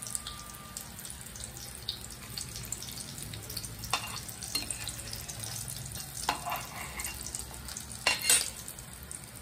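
Spring rolls shallow-frying in hot oil in a wok: a steady sizzle with small crackles. A metal spatula scrapes and knocks against the pan a few times as the rolls are turned, loudest near the end.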